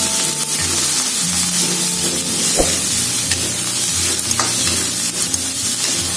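Shrimp and garlic sizzling in hot oil in a wok while being stir-fried, with a metal spatula scraping and clicking against the pan.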